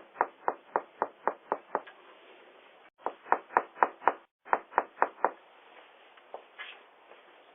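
Knocking on a front door, heard through a video doorbell's microphone: three quick runs of raps, about four a second, with short pauses between.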